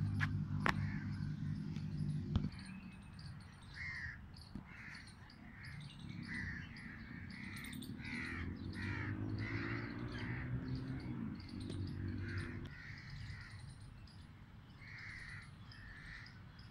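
Crows cawing over and over, short harsh calls about once or twice a second. A low machine hum runs underneath, stopping about two seconds in and coming back, rising and falling, in the middle.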